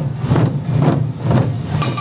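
Korean pungmul barrel drums (buk) beaten by a marching troupe in a steady rhythm of low strokes, about two a second.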